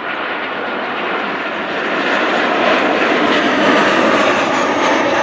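Jet airliner flying low past, its engine noise a loud, steady rush that swells slightly, with a faint high whine in the later part.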